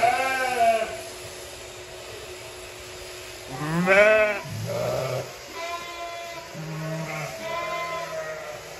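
Several sheep bleating in a crowded pen: a loud bleat that rises and falls at the start and another about four seconds in, followed by a lower bleat and several fainter ones from other sheep.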